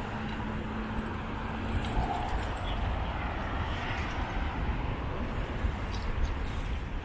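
Street traffic going by on the adjacent road, over a steady low rumble of wind and the moving bike on the microphone.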